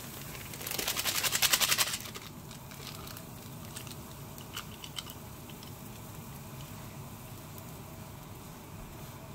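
A rapid crinkly crackle for about a second near the start, then a steady low hiss with a few light taps as powdered ramyeon soup base is emptied from its sachet into a simmering aluminium pot and stirred in with a wooden spoon.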